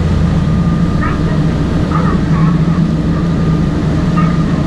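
Sightseeing boat's engine running steadily under way: a constant low drone.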